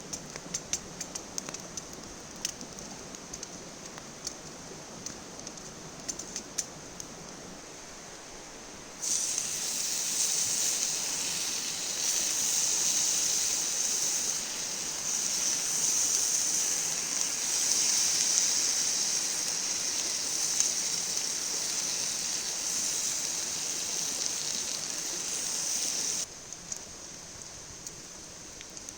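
Campfire crackling with scattered sharp pops over a steady background rush, then from about nine seconds in a louder, steady high hiss of bacon sizzling in a pan over the fire, which cuts off suddenly near the end, leaving the crackling again.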